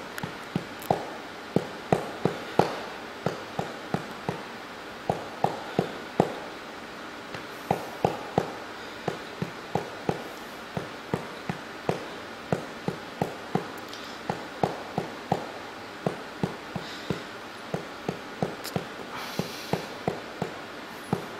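A hand patting a baby's back to bring up a burp: a steady run of short pats, about two to three a second, with a few brief pauses.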